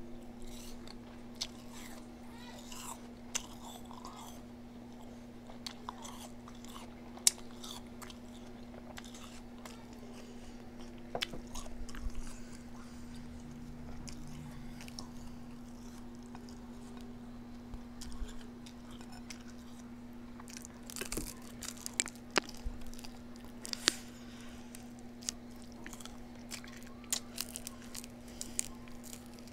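A person chewing and biting food close to the microphone, with intermittent crunches and small clicks, over a steady low hum.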